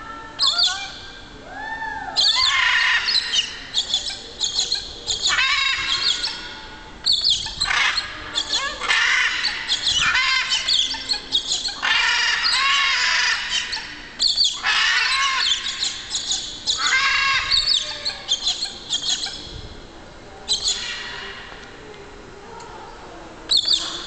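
Macaws in flight giving a long series of loud, harsh squawks, one after another with short gaps, echoing in a large hall.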